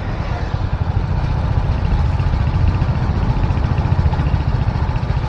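Motorcycle under way on a road: engine running steadily under a heavy low rumble of riding noise, loud enough to drown out the rider's voice.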